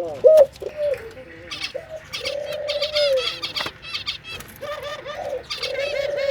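Doves cooing in several drawn-out notes, with small birds chirping at a higher pitch over them.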